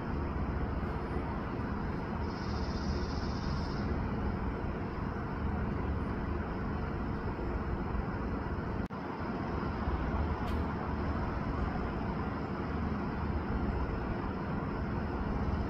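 Steady outdoor background rumble and hiss with no distinct event, heaviest in the low end. A brief high, trilling sound comes about two seconds in.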